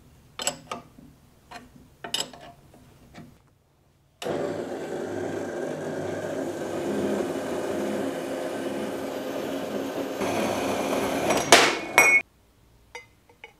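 A few light metallic clicks as the saw's mitre angle is set with a wrench. Then the REX Mantis 180 WA metal-cutting band saw runs steadily for about eight seconds, its blade cutting through a round steel pipe at an angle, with two sharp metallic clanks near the end before the sound stops suddenly.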